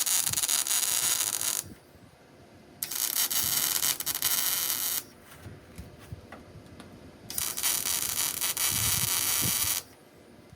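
MIG welder laying short stitch welds on sheet-metal body panels: three bursts of crackling buzz, each about two seconds long, with short pauses between.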